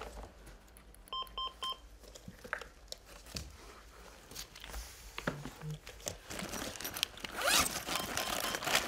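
A cardiac monitor-defibrillator sounds three short, evenly spaced beeps about a second in. From about six and a half seconds, plastic packaging rustles and crinkles loudly as hands rummage through the pouches of a medical kit.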